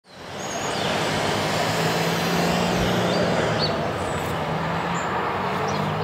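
Steady city street traffic, a low engine hum under a hiss, fading in at the start, with a few faint high bird chirps scattered through it.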